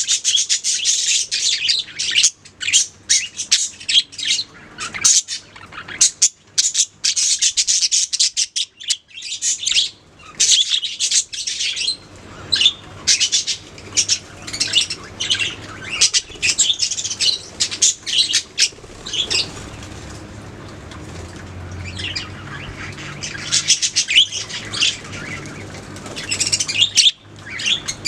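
A colony of budgerigars chirping and chattering continuously, many birds at once in a dense overlapping stream of quick high chirps, thinning briefly about two-thirds of the way in.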